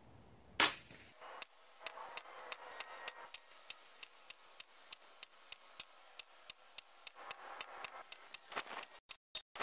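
A single sharp shot from an Ataman M2 .25 caliber PCP air rifle about half a second in. It is followed by steady, evenly spaced ticking, about three ticks a second.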